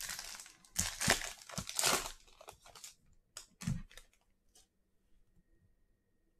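A trading-card pack wrapper being torn open and crinkled for about three seconds, followed by a few light taps and a soft knock as the cards are handled.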